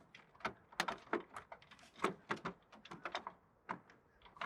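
Plastic liftgate trim panel being handled and lined up into place, giving a quick, irregular run of light clicks and knocks.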